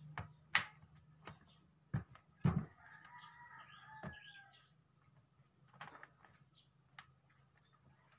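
Plastic clicks and knocks of a laptop battery being handled and slid into the battery bay of an HP Compaq Presario CQ42, the loudest about half a second and two and a half seconds in. Right after the second loud knock a bird calls for about two seconds in the background.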